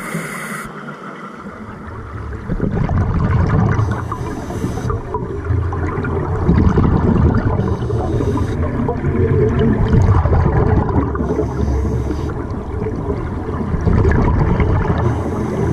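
Scuba regulator breathing heard underwater: a short hiss with each breath in, about every four seconds, and a rumbling bubbling of exhaled air between.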